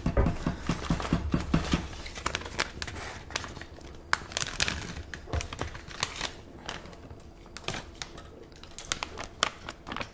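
Plastic food pouch crinkling and tearing as it is opened by hand, a run of sharp, irregular crackles.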